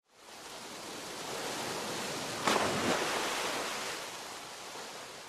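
A rushing, surf-like noise that swells in, jumps with a sharp burst about two and a half seconds in, then slowly fades away.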